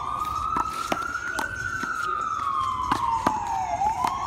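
Emergency vehicle siren wailing, its pitch slowly rising, then falling, and sweeping back up near the end. A few sharp knocks sound at irregular moments.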